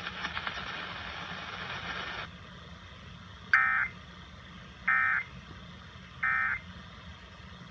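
Weather radio receiver hissing, then three short, identical warbling data bursts about a second and a third apart. These are the Emergency Alert System end-of-message code closing a National Weather Service tornado warning broadcast.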